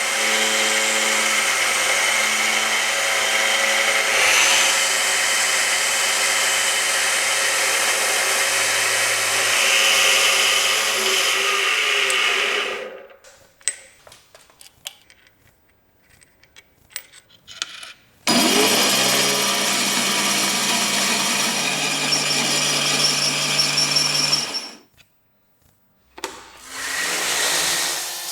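Metalworking machine tool running steadily under power, stopping, then a few small clicks. It starts again with a rising spin-up, runs, and stops again, with a shorter run near the end.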